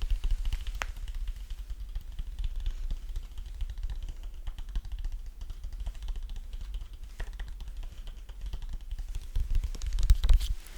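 Rapid, dense tapping and clicking close to the microphone, with low thumps, loudest near the end.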